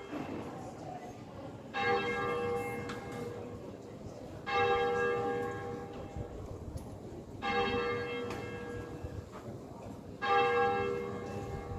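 A single church bell of St Mary Magdalene, Newark, tolling slowly. It is struck four times about three seconds apart, and each stroke rings on and fades before the next.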